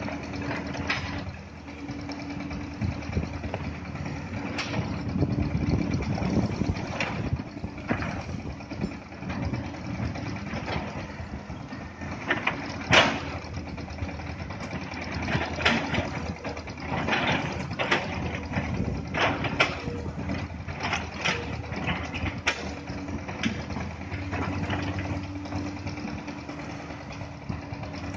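Komatsu crawler excavators' diesel engines running steadily, with scattered clanks and knocks of a steel bucket against rock and rubble. The loudest knock comes about halfway through.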